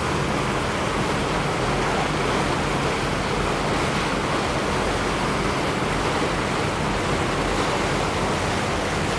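Steady rushing noise aboard a moving river tour boat, with a low hum underneath.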